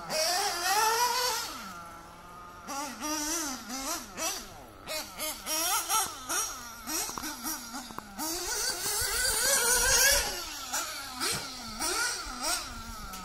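Radio-controlled off-road cars' motors whining, the pitch rising and falling quickly and over and over as they accelerate and slow around the track, at times with more than one car heard at once.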